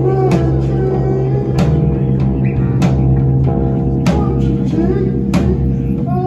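Live band music: electric and acoustic guitars over a steady low bass drone, with a sharp drum hit about every second and a quarter and gliding, slide-like notes above.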